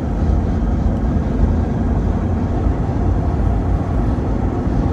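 Steady low rumble of a car travelling at highway speed, tyre and wind noise heard from inside the moving vehicle.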